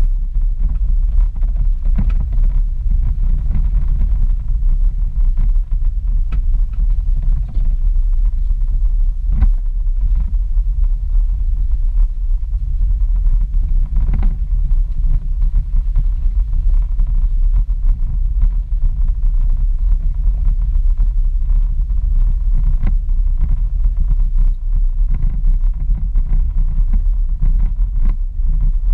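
Toyota FJ Cruiser driving slowly over a rough, rocky dirt trail: a steady low rumble of engine and tyres, with a few sharp knocks as the truck jolts over the ruts.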